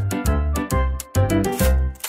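Upbeat background music with a steady, bouncy beat, bass notes under a bright melody; it drops away briefly about a second in.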